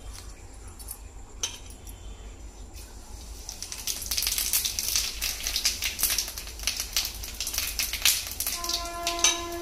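Small fish frying in hot oil, a crackling sizzle that swells about three and a half seconds in and stays loud. Near the end a steady pitched tone joins it.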